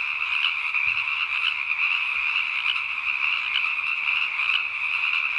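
A dense chorus of frogs calling continuously at an even level, with no let-up.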